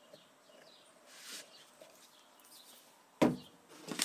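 Faint bird chirps from outdoors over quiet workshop room tone, with a brief hiss about a second in. About three seconds in comes a sharp knock on the work table, followed by rustling of paper.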